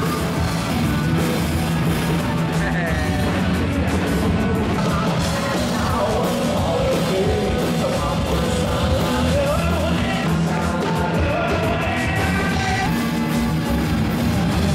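Rock band playing live: distorted electric guitars, bass and drums, with a singer's voice carrying the melody.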